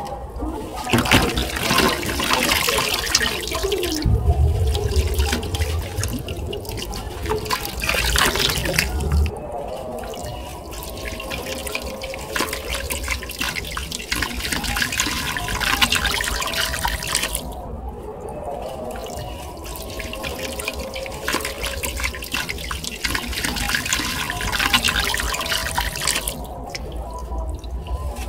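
A soft red dirt block crumbled and crushed by hand over a bucket of water: gritty crackling and crunching as the clumps break, with splashes and trickling as pieces and grit fall into the water. It comes in several rounds with short quieter pauses between them.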